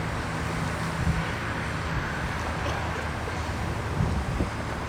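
Steady low hum with wind rushing across the microphone, and a small knock about four seconds in.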